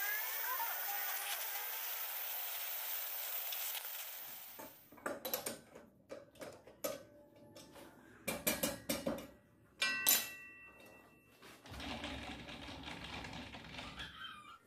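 Gas welding torch flame hissing steadily while it melts aluminium into a motorcycle wheel's bearing housing. After about four and a half seconds it gives way to a run of metallic knocks and clatters as the wheel is set and tightened in a metal lathe's chuck, one of them ringing briefly about ten seconds in.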